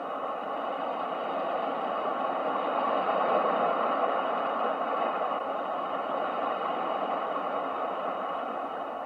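Ocean surf as a steady rushing noise, swelling to a peak about three seconds in and slowly easing off as a wave washes in.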